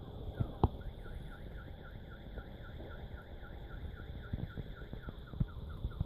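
Car alarm siren cycling through its tones, triggered by the shock of a firework blast: falling whoops that switch about a second in to a faster run of short chirps, about five a second. A few sharp knocks sound over it.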